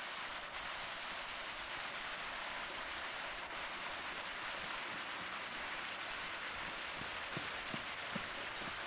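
Steady rushing and splashing of a waterfall spilling down a rock face, an even hiss with no changes. A few faint knocks come near the end.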